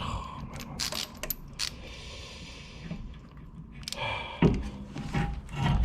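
Metal tools clinking against the rear brake caliper as a piston rewind tool and wrench are worked on it: several sharp ringing clinks in the first two seconds, then a few dull knocks near the end.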